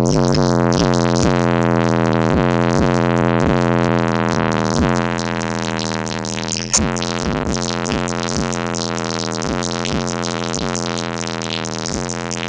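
Bass-heavy rap track played loud through a car stereo with two Memphis SR 12-inch subwoofers in a vented box, powered by a 500-watt Memphis amp. A long deep bass note is held under a steady beat of about two hits a second.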